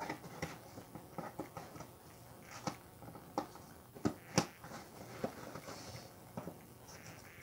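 Light handling sounds of small objects being worked in the lap: scattered taps, clicks and rustles, with two sharper clicks about four seconds in.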